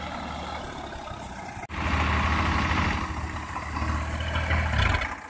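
Tractor diesel engine running steadily. A brief break about a second and a half in, after which it is louder.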